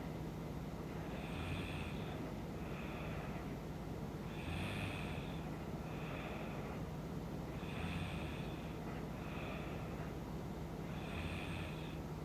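A woman snoring in her sleep: a louder snoring breath followed by a softer one, repeating in a slow, even rhythm about every three seconds, over a steady low hum.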